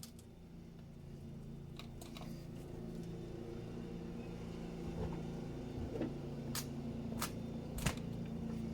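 Bosch Serie 8 WAW32590 front-loading washing machine running early in its wash cycle: a steady motor hum with a few sharp knocks in the last few seconds, three close together near the end.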